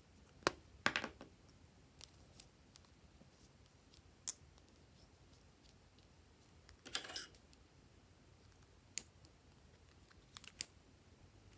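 Short, sharp plastic clicks and taps as small glue-stick tubes are handled and their caps pulled off, with a quick run of clicks about a second in and a longer rattly cluster about seven seconds in. A couple of crisp snips near the end as scissors cut into a glue stick.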